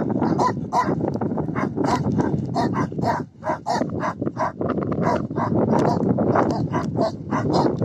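Small puppies yapping, short high yips several a second in a near-continuous run, with a brief lull about three seconds in.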